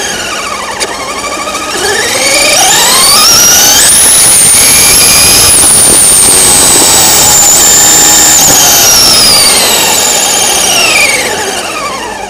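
Traxxas Rustler RC truck's 4000 kV brushless motor at full throttle on 3S. A high whine dips at first, then climbs steeply in pitch over about two seconds, holds near the top for several seconds, and falls away near the end as the truck slows.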